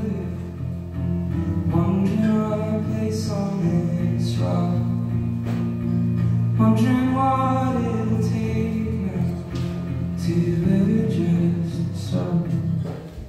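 Live band music: a man singing over acoustic guitar, with bass, electric guitar and drums holding sustained chords. The sound dies away near the end.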